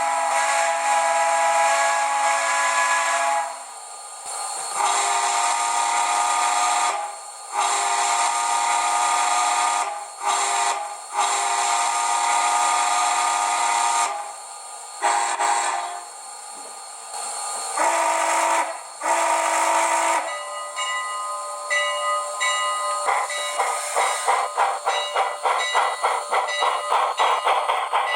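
Chime steam whistle played through a model locomotive's TCS WOW Sound decoder, sounding a series of long and short blasts. After about 20 seconds the decoder's steam exhaust chuffs start and quicken as the locomotive gets under way.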